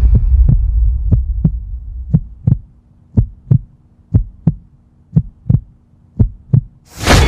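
Heartbeat sound effect: pairs of low thumps, lub-dub, about one pair a second, over a faint steady hum. Music fades out over the first two seconds, and a loud swell cuts in near the end.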